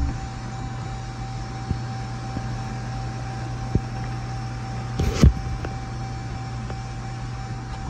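Steady low hum with a faint constant whine inside the cabin of a 2014 Jeep Grand Cherokee that is powered up, with a single knock about five seconds in.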